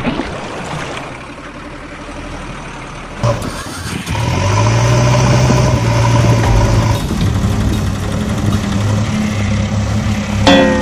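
A splash at the very start, then, from about four seconds in, an engine running steadily at idle with a low hum and a couple of higher held tones. A sharp knock comes near the end.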